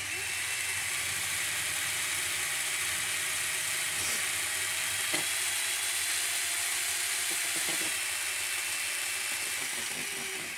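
Small model steam engine running and spinning a miniature flyball governor: a steady hiss with a faint high whir.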